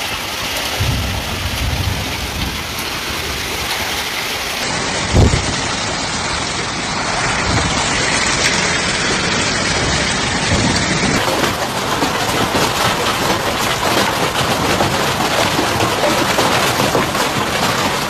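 Heavy rain and hail driven by strong wind: a dense, steady hiss with gusts buffeting the microphone. There is one loud thump about five seconds in.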